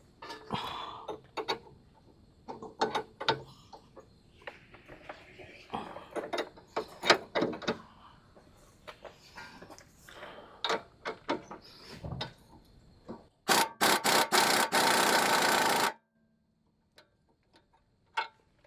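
Metal hand tools clicking and knocking as a wrench is worked onto a sway bar end link nut, a series of sharp irregular clinks. Near the end comes a loud rattling clatter of about two and a half seconds that cuts off abruptly.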